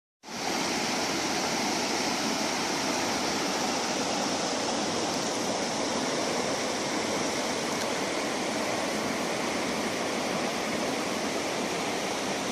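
Steady rushing of a fast-flowing river, an even, unbroken wash of water noise that starts abruptly.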